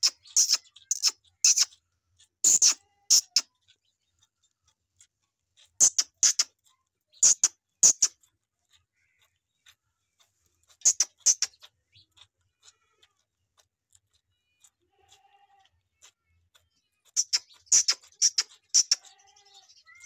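A calf suckling at a goat's teat: wet sucking and slurping sounds in short clusters of a few quick pulls, with pauses of a few seconds between clusters.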